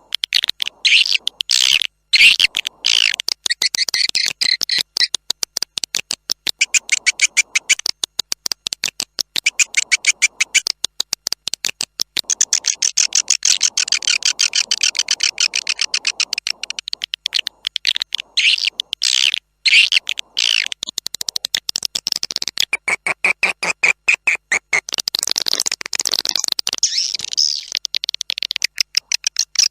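Swiftlet call recording, the kind played to lure swiftlets into a nesting house: many swiftlets twittering together in dense, rapid chirping trills and clicks, high-pitched and almost unbroken.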